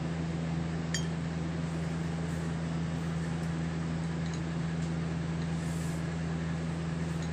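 Steady low mechanical or electrical hum, with a faint click about a second in.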